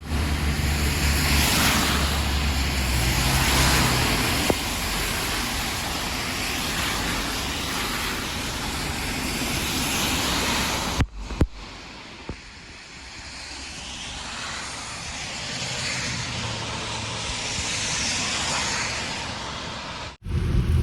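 Steady hiss of heavy rain with a low rumble underneath. It breaks off abruptly about eleven seconds in and comes back softer, then breaks off again near the end.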